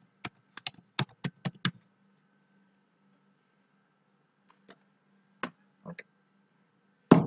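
Computer keyboard typing: a quick run of keystrokes entering an IP address, then a pause, a few scattered single clicks, and one louder click near the end.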